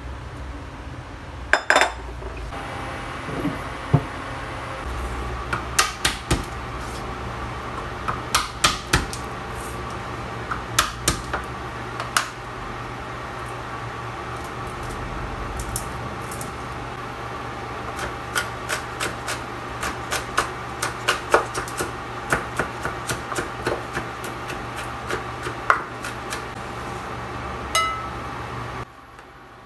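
Kitchen knife chopping garlic on a wooden cutting board: irregular runs of sharp knocks over a steady hum, with a louder clatter near the start.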